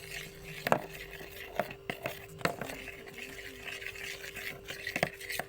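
A spoon stirring lime juice and sweet soy sauce in a small container, scraping and clicking against its sides several times.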